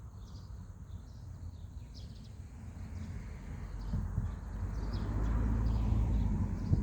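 Outdoor ambience: a low rumble that swells about four seconds in, with faint, scattered bird chirps.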